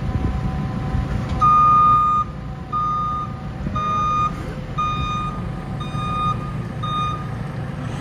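A farm machine's reversing alarm beeping six times, about once a second, over the steady running of diesel engines.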